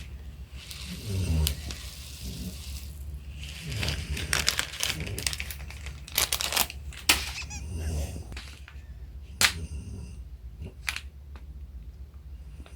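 A man snoring: slow, low rumbles about every three seconds. Over it come small sharp clicks and crinkling from slime-making materials being handled.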